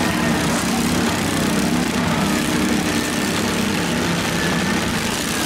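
Several garden tractor engines running at once: a steady, overlapping drone of small engines.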